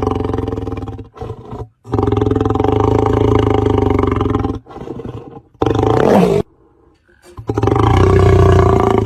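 A lion roaring: long, deep roars one after another with short breaks between them, and quieter growling sounds in the gaps.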